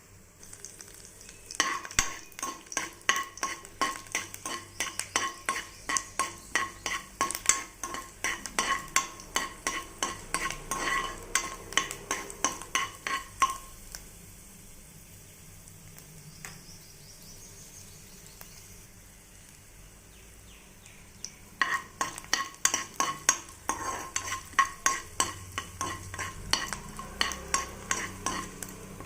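Potatoes frying in a pan while a utensil stirs and scrapes them, about two to three strokes a second over a steady sizzle. The stirring stops for several seconds midway, leaving only the sizzle, then starts again.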